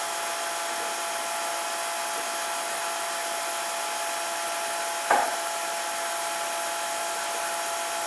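Handheld power tool running steadily in wood with an even whine, and one short knock about five seconds in.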